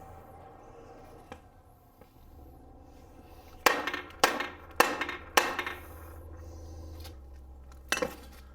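Hammer strikes on an air-cooled VW engine case: four sharp blows about half a second apart, then one more near the end, knocking at the case halves to split them apart.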